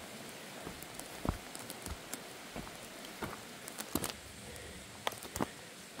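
Footsteps crunching and brushing through forest undergrowth: irregular snaps and rustles of leaves and twigs over a faint steady background hiss.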